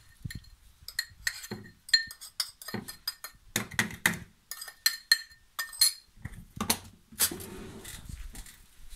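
A metal spoon clinks and scrapes against a small ceramic bowl, many short ringing taps, as homemade dishwasher paste of baking soda, salt and lemon is scooped into the detergent compartment. After about six seconds come a low rumble and a heavier knock as the dishwasher's compartment and door are handled.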